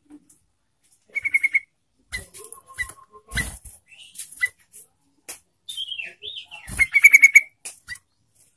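Yellow-vented bulbul (trucukan) singing: bursts of quick repeated chattering notes about a second in and again, loudest, about seven seconds in, with short gliding notes and a few knocks between phrases.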